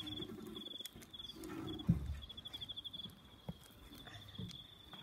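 Plastic zip-lock bag rustling and clicking as it is pinched shut by hand, with one sharp thump about two seconds in. A faint high, pulsing tone sits behind it.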